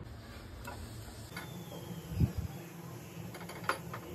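Faint steady background hiss, with a dull, deep thump about two seconds in and a short sharp click near the end.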